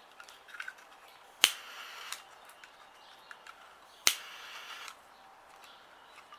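A hand lighter clicked twice, about two and a half seconds apart, each click followed by a brief hiss of gas flame that stops after under a second.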